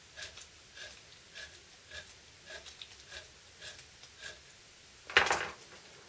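Armature commutator of a cordless drill motor being rubbed clean with fine abrasive foil as it is turned by hand: a short, loud scrape about five seconds in, over a faint, even tick a little under two times a second.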